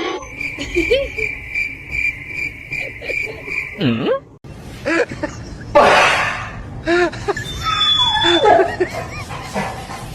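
People laughing and giggling. For the first few seconds a steady high-pitched pulsing tone runs underneath, about two to three pulses a second.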